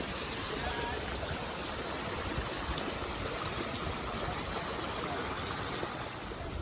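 Steady rush of running water from a stream at a small waterfall.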